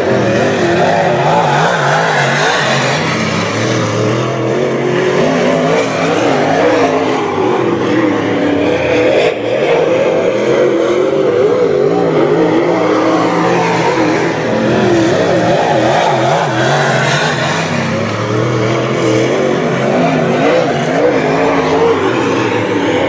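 Several dirt late model race cars' V8 engines at racing speed, overlapping, their pitch rising and falling again and again as the cars lift for the turns and accelerate out of them.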